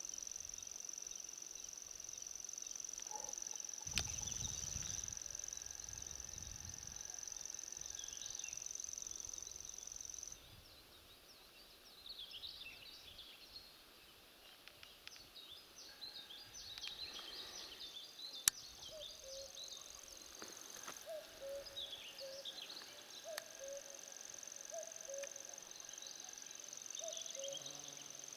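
Summer meadow sounds. An insect sings a steady high-pitched trill that stops about ten seconds in and starts again near twenty-one seconds, while small birds chirp. Two sharp clicks come about four seconds in and near eighteen seconds, the second the loudest sound.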